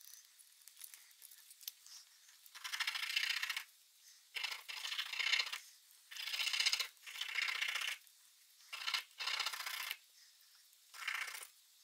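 A small needle file rasping on a small metal clock-motor part, in five bursts of strokes about a second long each.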